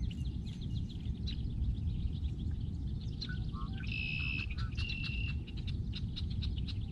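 Wild birds chirping and calling, with many short chirps and a couple of held whistled notes about four and five seconds in, over a steady low rumble.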